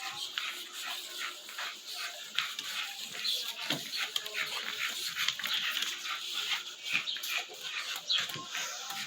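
A litter of American Bully puppies whimpering and squeaking, many short high-pitched cries overlapping one another.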